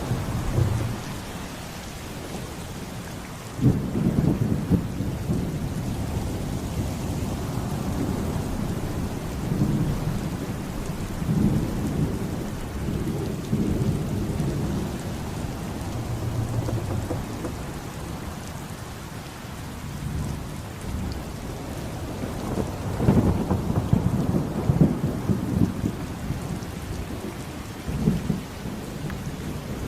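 Thunderstorm: steady heavy rain with rolling thunder, with sudden loud thunder claps about four seconds in and again near the middle of the second half.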